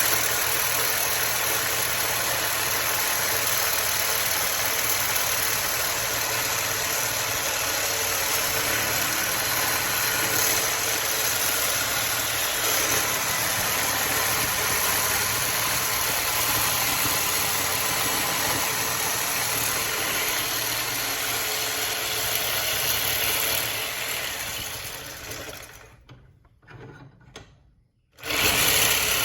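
Power saw running steadily as it cuts through a microwave magnetron to free its copper. About 24 seconds in the sound dies away to near silence, then comes back abruptly at full level just before the end.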